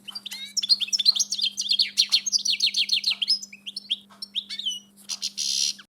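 Small songbirds chirping and twittering in rapid, overlapping notes, over a faint steady hum.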